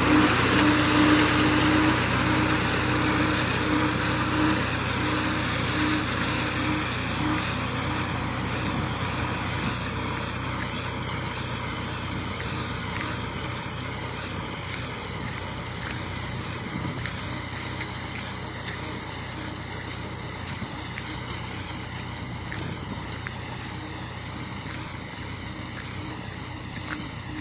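Tractor engine running steadily while pulling a rear-mounted mower through a field. It grows steadily fainter as the tractor moves away.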